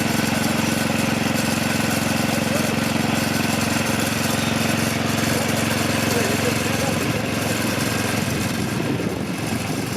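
Engine idling steadily, its even running growing less regular after about seven seconds.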